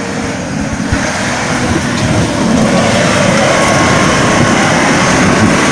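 Off-road vehicle engine running, growing louder over the first few seconds and then holding steady.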